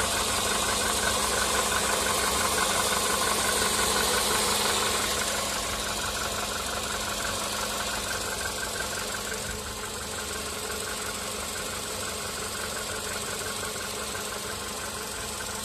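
Volkswagen Polo Sedan's CFNA 1.6-litre four-cylinder petrol engine idling during warm-up with a fast, even knocking: piston knock. The sound gets slightly quieter about five seconds in.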